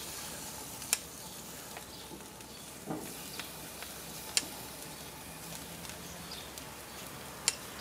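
Butter sauce sizzling on a hot barbecue grill as it is brushed onto corn on the cob: a steady hiss with a few sharp crackles.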